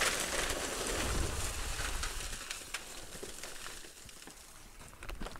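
Mesquite lump charcoal pouring out of a paper bag onto cardboard: a continuous clatter of chunks falling and tumbling that dies away about four seconds in, followed by a couple of single knocks.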